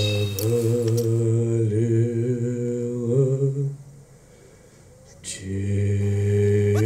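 A low, held chant-like drone of voices, several steady tones sounding together like a hummed chord, that breaks off about four seconds in and starts again a second and a half later.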